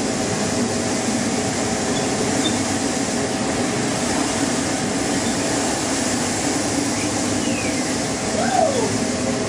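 Steady rush of storm wind and heavy sea heard aboard a container ship, over a constant low hum of the ship's machinery. A couple of short falling whistles come near the end.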